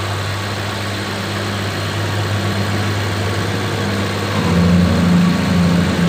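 Chevrolet Chevy's four-cylinder engine idling steadily while it warms up to bleed air from the cooling system. About four seconds in, the idle note drops slightly in pitch and gets a little louder.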